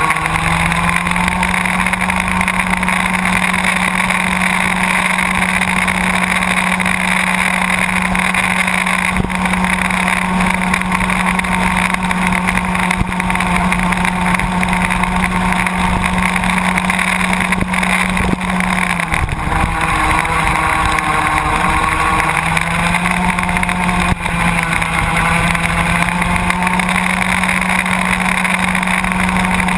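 Small two-stroke engine of a Baby ROK go-kart, heard from the kart's own on-board camera, running hard at a steady high pitch. About two-thirds of the way through the pitch drops for a few seconds, then climbs back up as the kart accelerates again.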